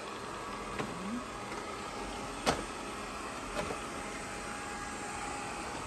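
GleeU GRS1 robot vacuum running with a steady whir, with a few light knocks, the sharpest about two and a half seconds in.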